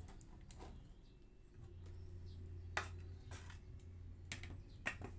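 A few light knocks and scrapes as a tin can and a metal bowl of gravel and cement mix are handled on a wooden bench, over a low steady hum.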